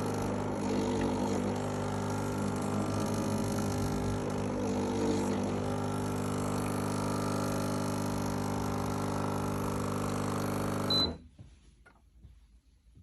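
BlitzHome BH-CM1503 espresso machine's pump running with a steady buzzing hum, on a machine its owner says is not working properly. It cuts off abruptly about eleven seconds in, with a short high click as it stops.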